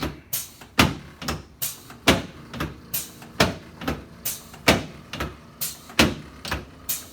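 A quick run of sharp knocks, two or three a second, each one short and dying away fast, made during a chiropractic treatment on a patient lying on a table.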